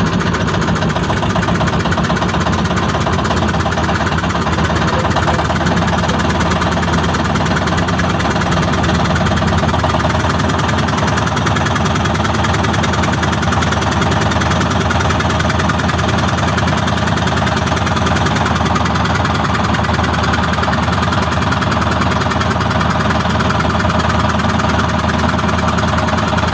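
An engine running steadily at an unchanging speed, loud and even throughout.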